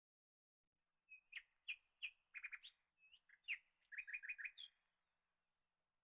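A small bird chirping in two short phrases of quick notes and rapid trills, each lasting about a second and a half.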